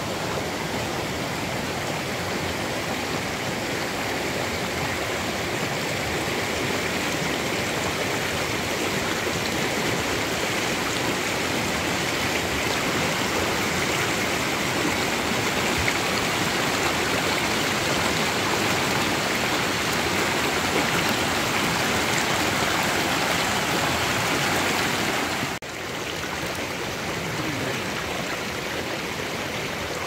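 River water flowing in a steady, even rush. About three-quarters of the way through it breaks off for an instant and carries on slightly quieter.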